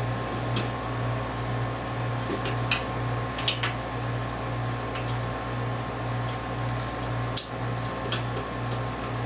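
Sharp clicks and taps of a tool and wire against a sheet-metal light-fixture housing as a ground wire is fastened to it, the loudest about seven seconds in. Under them runs a steady low machine hum that gently swells and fades.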